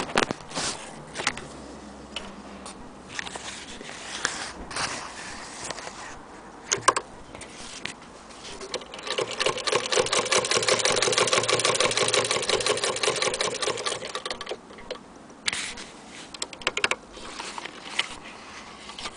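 Hand-crank Singer 15K80 sewing machine stitching leather: from about eight seconds in, a run of about six seconds of fast, even mechanical clatter from the needle and stitching mechanism. Before and after it, scattered knocks and clicks from handling the machine and the work.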